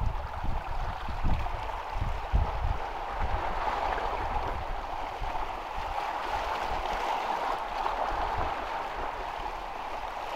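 Small sea waves washing and lapping against shoreline rocks in a steady hiss, with wind gusts buffeting the microphone during the first few seconds.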